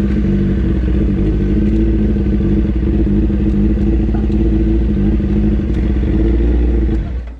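Kawasaki Ninja ZX-9R's inline-four engine running steadily without revving as the bike rolls slowly; the sound drops away sharply near the end.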